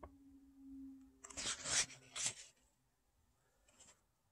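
Paper pages of a paperback illustration booklet being turned by hand, with a few quick papery swishes about a second and a half in and a small rustle near the end. A faint low steady hum sounds under the first second or so.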